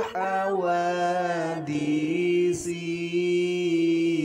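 A voice chanting the attribute 'mukhalafatu lil hawadithi' of the twenty sifat wajib of Allah, drawing the syllables out in long sung notes and holding one steady note through the second half.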